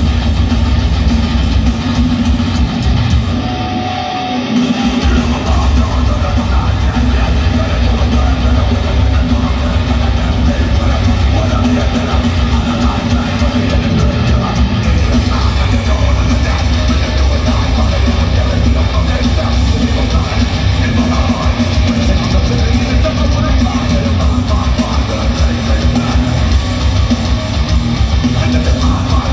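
Live heavy metal band playing loud through an arena sound system: distorted electric guitars over a drum kit, with a brief dip about four seconds in.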